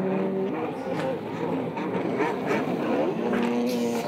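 Racing stand-up jet ski engines revving, their pitch rising and falling and holding at times as the skis race and turn through the buoy course. More than one engine is heard at once.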